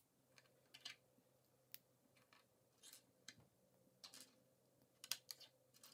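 Faint, irregular clicks and rattles of plastic K'NEX rods and connectors being handled and snapped together on a tabletop, the sharpest clicks about five seconds in.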